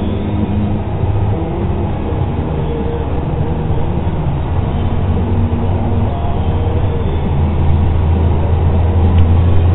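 Combine harvester running steadily while cutting durum wheat: an even, low engine and machinery drone with no breaks.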